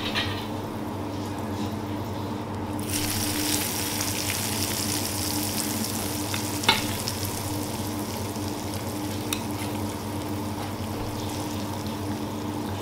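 Hot oil sizzling steadily in a pan as seasoning oil is fried, the sizzle growing brighter and louder about three seconds in. A couple of sharp clicks are heard partway through.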